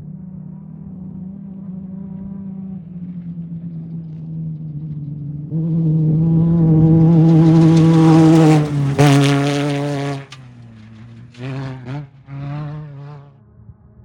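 Off-road race vehicle's engine approaching at speed and passing close by, loudest around eight to nine seconds in. Its pitch drops as it goes by, then it fades, with two short revs as it pulls away.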